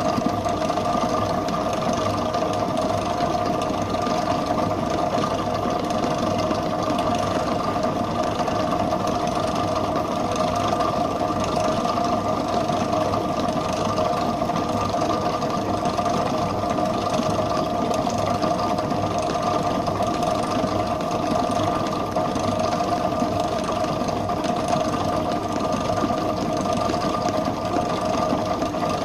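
Electric bakery stand mixer running steadily as its beater whips butter cream icing in a steel bowl: an even motor hum with a constant mid-pitched whine that does not change.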